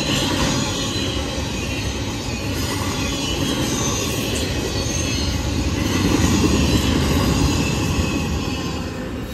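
Double-stack intermodal container well cars rolling past: a steady rumble of wheels on the rails with thin, high-pitched wheel squeal over it, loudest about six seconds in and getting quieter near the end.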